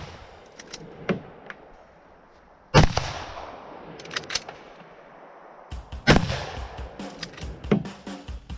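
Rifle shots at a practical shooting stage: a few single shots spaced a second or more apart, each followed by a rolling echo. The loudest come about a third of the way in and again about two-thirds in. Background music joins in a little before the second loud shot.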